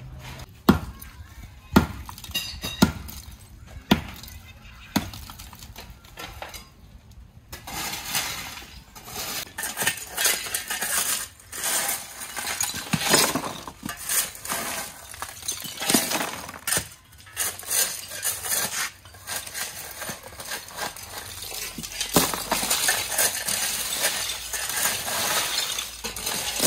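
Shovels scraping and scooping a pile of broken brick and clay roof-tile rubble, the shards clinking and crunching against each other. The first few seconds hold a run of sharp knocks about a second apart; after that the scraping and crunching are continuous.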